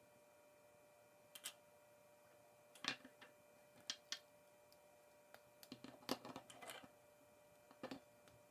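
Plastic K'NEX rods and connectors clicking and snapping together as they are fitted by hand: scattered sharp clicks, single and in pairs, with a quick run of them around six seconds in.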